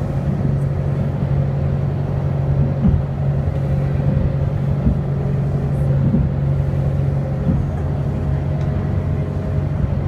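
Motorboat engine running steadily under way, a constant low drone, over the rushing noise of the hull moving through choppy water.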